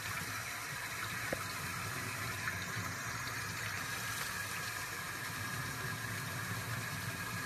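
Sink faucet running steadily, its stream falling onto a small puppy held under the tap. A light click just over a second in.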